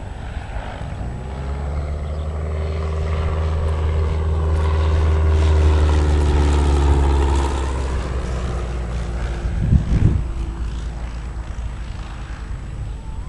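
Zeppelin NT airship's propeller engines running, the drone swelling to a peak midway and easing off again as its pitch sags slightly. A brief low thump about ten seconds in.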